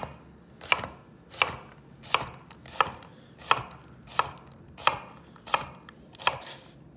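Chef's knife chopping crosswise through a scored onion half on a wooden cutting board, dicing it: about ten sharp, even strokes, roughly three every two seconds, stopping shortly before the end.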